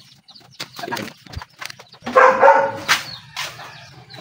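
A domestic animal's loud call about two seconds in, with a shorter one just after, amid light knocks and rattles of handling.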